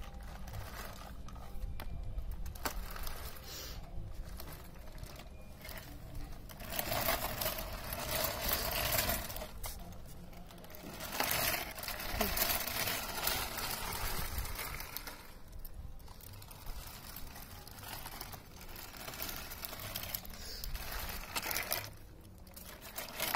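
Plastic wheels of a baby walker rolling and rattling over a rough concrete floor, in uneven spells, with louder stretches about a third of the way in and again around the middle.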